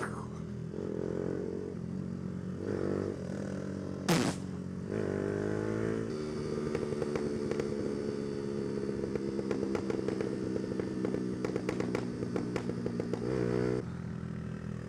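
125cc motorcycle engine running on the move, rising and falling through the gears in the first seconds, then held steady with a fine rapid rattle until it drops back near the end. There is one brief loud burst about four seconds in.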